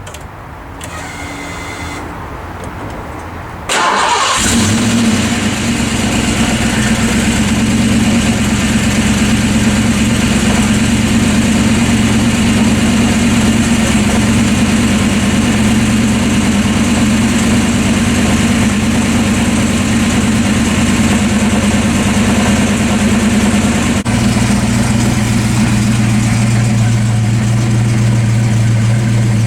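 Ford Fox-body Mustang's 5.0 V8 starting about four seconds in, then idling steadily; it runs now that the inertia switch, tripped in the accident, has been reset to restore power to the fuel pump. About 24 seconds in the idle's low note grows stronger.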